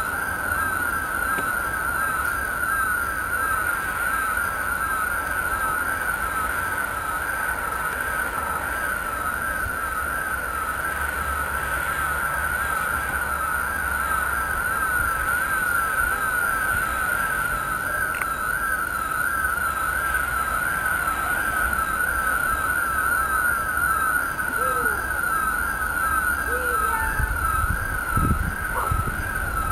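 A siren sounding continuously, its pitch wavering rapidly up and down in an even warble, over a low background rumble.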